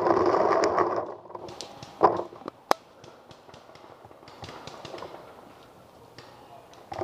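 A loud warbling tone, rising and falling about three times a second, stops about a second in. After it, a couple of sharp pops of paintball markers firing in the woods, the sharpest nearly three seconds in, among scattered faint ticks.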